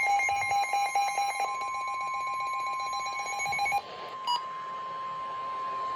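A weather alert receiver's electronic alarm beeping in a rapid pulsing pattern. About a second and a half in, the NOAA Weather Radio warning alarm tone joins it as one long steady tone, heralding a severe thunderstorm warning. The beeping stops just before four seconds in, leaving the steady tone.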